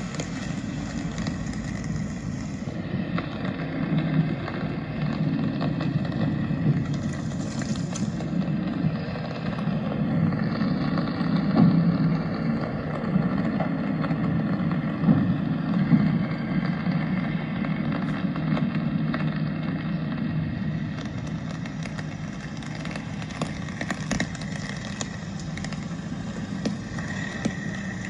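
Rainy city street ambience: a steady wash of noise with many light taps scattered throughout, and traffic.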